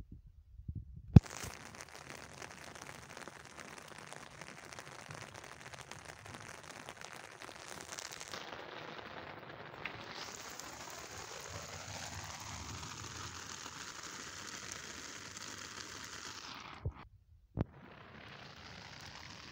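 Steady crackling hiss of rain falling, starting abruptly after a sharp click about a second in. It breaks off briefly near the end between two more clicks.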